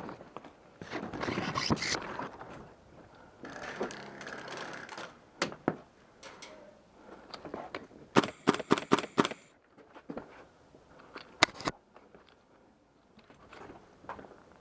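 Scraping and crunching of movement, broken by a few single sharp cracks and, a little past the middle, a quick string of about six sharp cracks: an airsoft gun firing.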